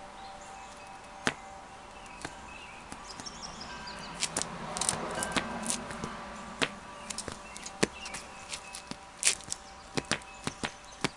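Leather dress shoes tapping and scuffing on a concrete porch floor as the feet shift: scattered sharp clicks, a couple early on, then coming more often from about four seconds in, with a stretch of scraping around five seconds.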